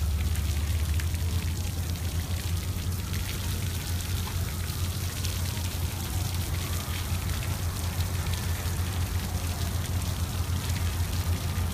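Water from a dog-park sprinkler spraying and pattering in a fine, steady crackle, over a steady low rumble.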